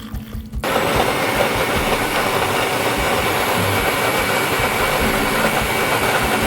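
Electric mixer grinder switched on about half a second in and running at a steady high speed, wet-grinding onions, green chilies and coriander stems with water into a paste.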